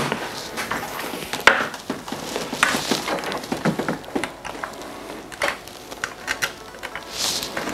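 Handling noise: scattered clicks, taps and rustling as a circuit board and its USB cable are moved on a desk and the cable is plugged in. The sharpest click comes about a second and a half in.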